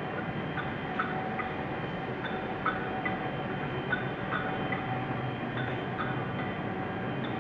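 Tacchi HD3/140 heavy CNC lathe running: a steady machine hum with a faint whine, and light, irregular clicks about twice a second.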